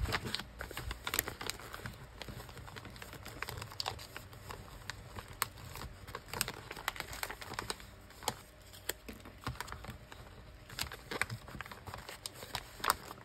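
Printed packaging bags crinkling and rustling as hands press, open and fill them, with many irregular sharp crackles.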